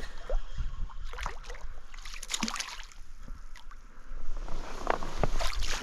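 Irregular splashing and slapping of water as a small brown trout hooked on a spinner is reeled in and brought to hand, with scattered knocks and low handling bumps.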